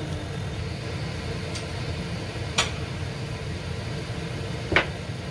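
Kitchen clatter: two sharp knocks of utensils about two seconds apart, the second louder, over a steady low rumble.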